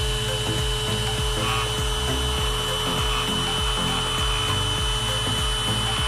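Xiaomi SWDK cordless handheld mite vacuum cleaner running steadily while vacuuming a mattress: a motor whine over a low rumble.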